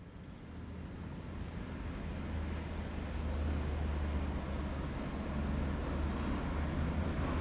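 Road traffic fading in: a steady wash of passing vehicles under the low engine rumble of a passing bus, strongest about halfway through.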